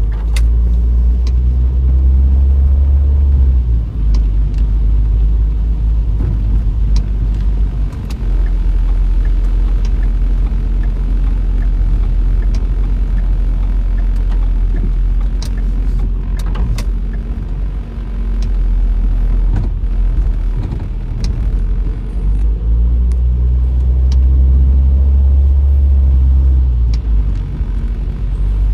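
Road noise inside a moving car's cabin: a steady low rumble, with scattered light ticks.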